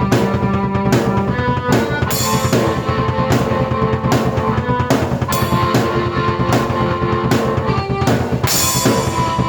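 Drum kit and keyboard played together: a steady, busy rock beat of bass drum and snare under held keyboard notes that change every second or two.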